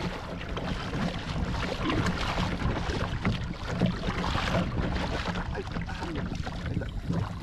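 Double-bladed kayak paddle dipping and splashing through sea water as the kayak moves along, with wind buffeting the microphone.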